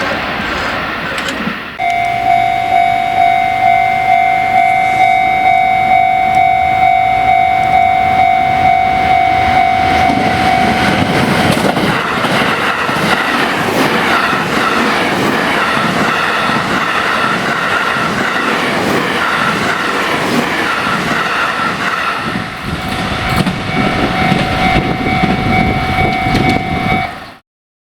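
Japanese level-crossing warning bell ringing with an electronic ding about twice a second. After about ten seconds it is drowned by the 285 series Sunrise Express electric sleeper train passing over the crossing, its wheels clattering rhythmically over the rail joints. Near the end the bell is heard again, and then the sound cuts off.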